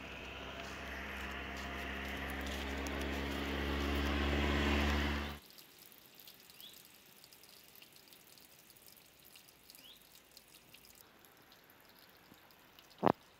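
A vehicle engine hum that grows steadily louder for about five seconds and cuts off abruptly. After it, quiet outdoor ambience with a couple of faint bird chirps, small ticks, and one sharp knock near the end.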